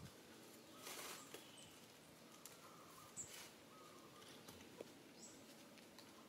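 Near silence: faint outdoor ambience with a few brief high chirps and two soft rustling swishes.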